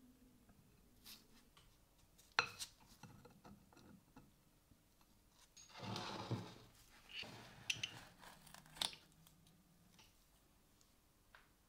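Quiet handling of steel bracket parts on a welding blanket: a sharp metallic clink about two seconds in, a short scrape around six seconds, and a few more light clinks soon after.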